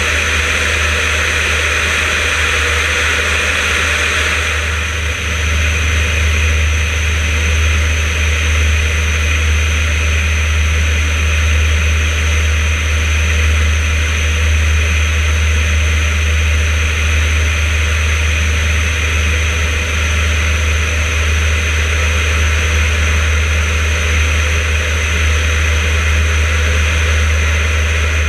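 Yak-52's nine-cylinder radial engine and propeller droning steadily in flight, with air rushing past the wing-mounted camera. About five seconds in the hiss eases and the low drone grows stronger.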